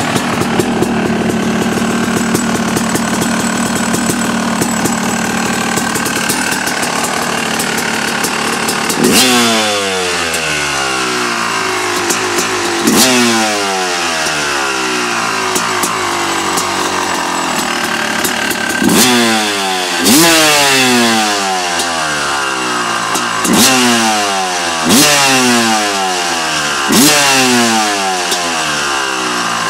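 Yamaha YZ250 two-stroke single-cylinder engine with a DEP exhaust idling, then blipped sharply about seven times, each rev falling quickly back to idle.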